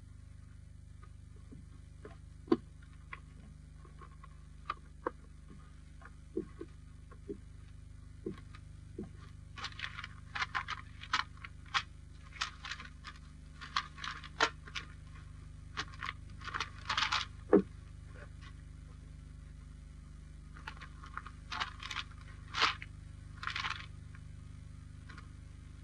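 Steady low hum of an old film soundtrack with scattered sharp clicks. From about ten seconds in come two runs of short scratchy crackles and scrapes, the first lasting about eight seconds and the second a few seconds shorter.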